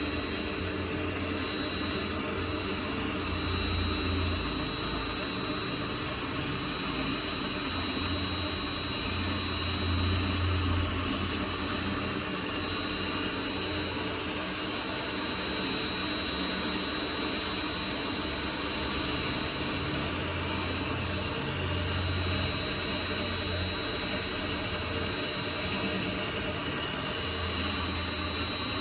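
Mini lathe running and turning steel, its motor giving a steady high whine over the machine's running noise, with a low hum that swells and fades every few seconds.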